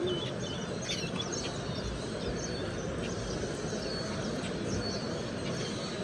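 Many small cage birds, finches and softbills, chirping and calling in short scattered notes over a steady background din.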